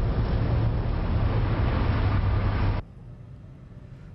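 Ship engines running with a steady low hum under loud wind and sea noise on deck, as two vessels run close alongside. About three seconds in it cuts off abruptly, leaving a much quieter wash of wind and sea.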